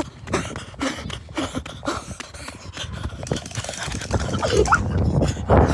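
Running footsteps slapping on asphalt, with wind and handling rumble on a handheld phone microphone that builds from about four seconds in, and short breathy vocal sounds.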